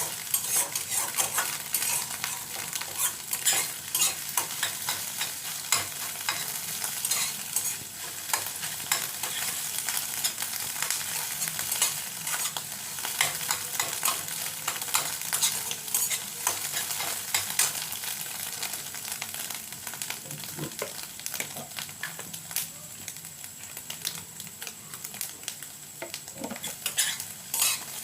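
Beaten eggs sizzling in hot oil in a nonstick kadai, with a steady crackling hiss and many quick clicks and scrapes as a spatula stirs and breaks up the egg.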